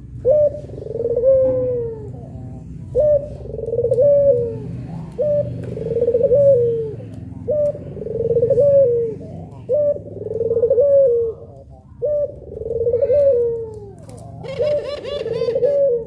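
Puter pelung dove, a long-cooing strain of Barbary (ringneck) dove, cooing seven times at about two-second intervals: each call a short sharp note followed by a longer falling, wavering coo.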